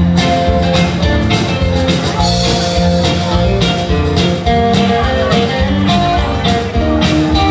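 Live band playing an upbeat rock-and-roll song, an instrumental passage with guitar over bass and a steady drum beat.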